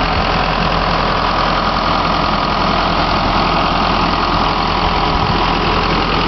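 Diesel engine of a 1998 Case 580 Super L Series 2 backhoe loader idling steadily. The engine runs smoothly and evenly, without shaking or stumbling, the sign of an engine in good condition.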